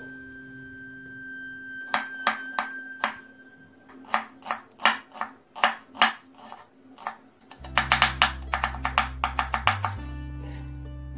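Kitchen knife chopping a red onion on a wooden cutting board: a few separate strokes, then steady chopping at about three strokes a second, then a fast run of about six a second that stops near the end. Background music plays throughout.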